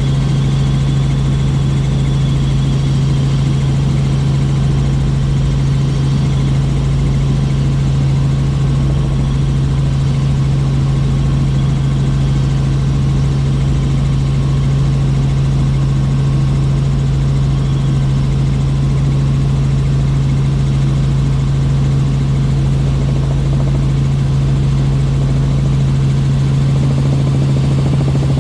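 Helicopter cabin noise in flight: a loud, steady low drone of engine and rotors, unchanging throughout, heard from inside the cabin.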